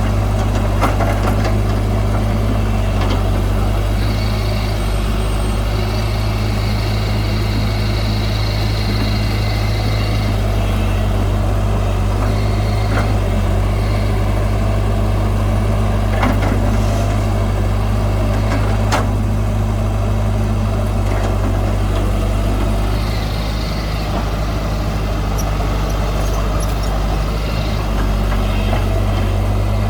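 Heavy diesel engine of earth-moving machinery running steadily, with a few sharp metallic knocks and a higher hiss that comes and goes twice.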